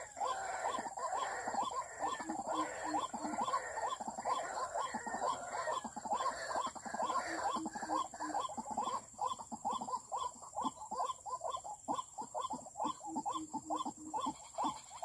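White-breasted waterhen calls: a long, unbroken series of short repeated croaking notes, about three a second, with short runs of a lower repeated note at times.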